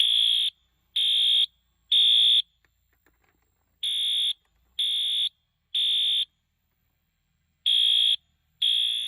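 Wheelock AS horn strobe sounding its code-3 (temporal-3) evacuation pattern at medium volume. It gives three loud half-second horn blasts about a second apart, pauses about a second and a half, and repeats; the third group is under way near the end.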